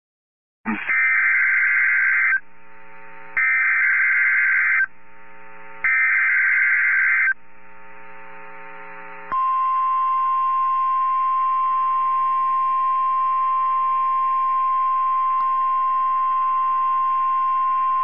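NOAA Weather Radio emergency alert: three short bursts of screeching digital SAME header data about a second apart, encoding the Special Marine Warning for receivers, then the steady single-pitch warning alarm tone from about nine seconds in, heard through the radio stream.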